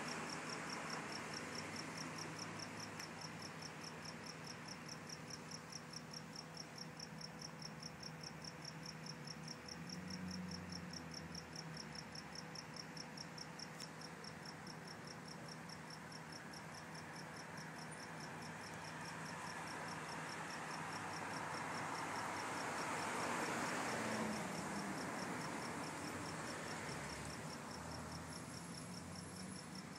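Crickets chirping steadily, an even high-pitched pulse a few times a second. Under it runs a low background rumble that grows louder about twenty-three seconds in.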